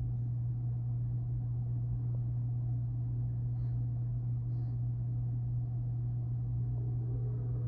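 A steady low rumble heard through a closed window. Right at the end a freight train's horn starts to sound, several steady tones together.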